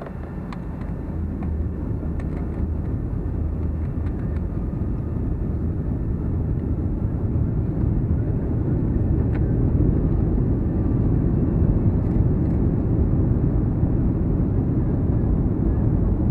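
Boeing 757-224's jet engines and airframe heard inside the cabin: a low rumble that grows steadily louder over the first ten seconds or so and then holds, as thrust builds while the jet turns onto the runway for takeoff.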